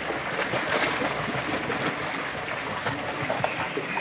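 Water splashing and churning in a pool from a swimmer's backstroke kicks and arm strokes, a steady irregular wash of splashes.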